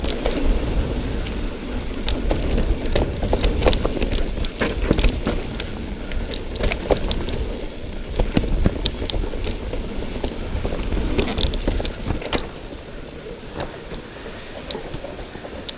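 Mountain bike riding fast over rough trail: wind buffeting the camera microphone with a low rumble, and frequent sharp clacks and rattles from the bike. It gets quieter after about twelve seconds.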